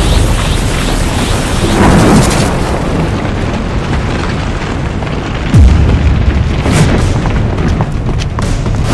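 Anime battle sound effects: continuous deep rumbling and booming, with a sudden heavy impact a little past the middle, under background music.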